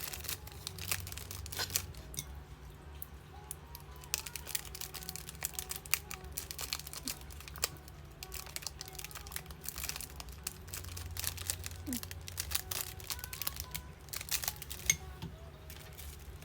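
Plastic packaging crinkling and rustling in irregular bursts, with scattered small clicks and taps, as small items are wrapped and bagged.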